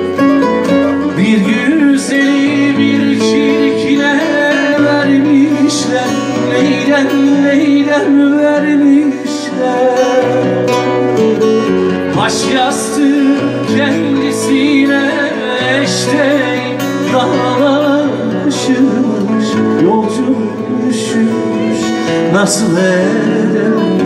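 Live acoustic performance of a Turkish folk song: a man singing over strummed acoustic guitar.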